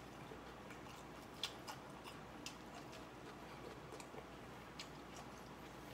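Quiet eating of a salad: a handful of faint, scattered clicks and crunches over a low, steady room hush.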